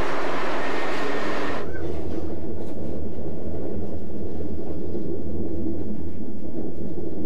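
A passenger train rushing past at speed with a loud, even rush of wheel and air noise. About a second and a half in, this cuts to the lower, steady rumble with a deep hum heard from inside a moving train.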